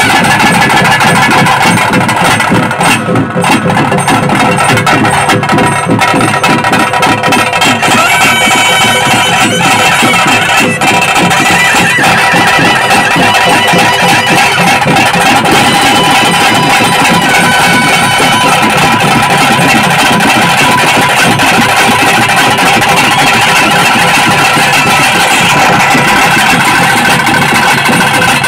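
Traditional Tulu bhuta kola ritual music: fast, continuous drumming with a shrill double-reed pipe of the nadaswaram type holding notes over it, loud and unbroken.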